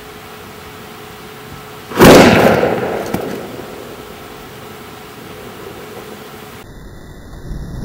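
A single sudden loud bang about two seconds in, dying away over a second or so, over a steady low hiss. Near the end a rushing noise swells up sharply.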